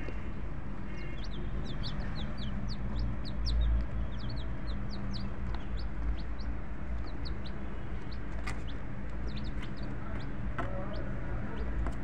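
Chickens clucking, with a steady stream of short, high-pitched peeps over a constant low hum; a dull bump about four seconds in is the loudest moment.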